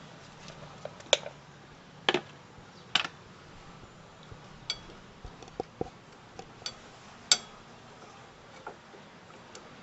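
Intermittent light metallic clinks and taps, like small metal parts or hand tools being handled and set down. The loudest come about one, two, three and seven seconds in.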